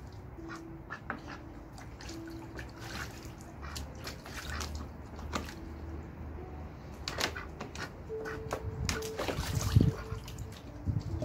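White domestic ducks bathing in a small plastic tub: water splashing, sloshing and dripping in irregular bursts as they dunk and flap, with the biggest splash near the end.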